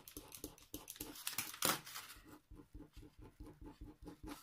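A craft knife making quick small cuts, scoring a diamond painting canvas: light ticks and scratches at about five a second, with one sharper tick about two seconds in.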